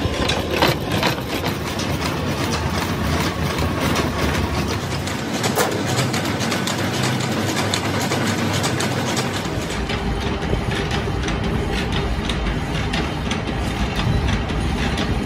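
Milling machine running and cutting splines into a steel axle shaft: a steady mechanical drone with many small clicks from the cut. The low rumble drops away for a few seconds around the middle, then returns.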